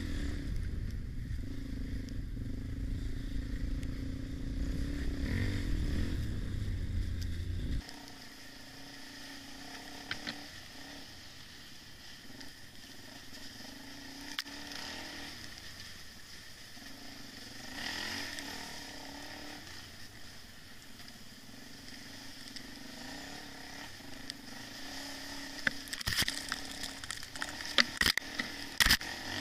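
Dirt bike engine running with wind noise on a helmet camera, dropping off abruptly about eight seconds in. After that a quieter, steady motorbike engine sound continues, with a few sharp knocks near the end.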